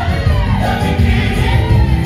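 Large gospel choir singing live, with deep bass accompaniment underneath.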